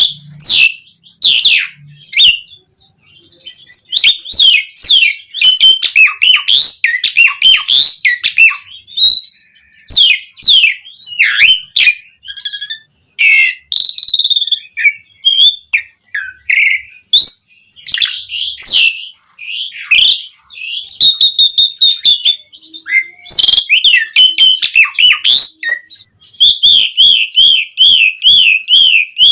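Javan pied starling (jalak uren) singing loudly: a varied string of whistles, squeaks and chatters with short pauses, ending in a fast, even, warbling trill.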